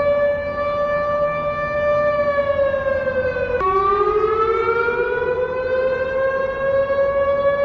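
Siren alarm tone sounding as an Emergency Alert System alarm, held on one steady pitch. About two seconds in it sags, then drops suddenly lower a second and a half later and slowly winds back up to the steady pitch.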